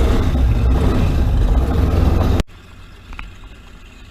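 Powerboat engine running loudly close by, then cutting off suddenly about two and a half seconds in, leaving a faint low hum.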